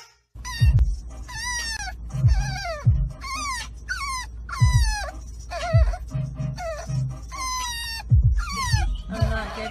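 French bulldog puppy whining: a rapid string of short, high cries, each falling in pitch, over the low steady rumble of the car it is riding in.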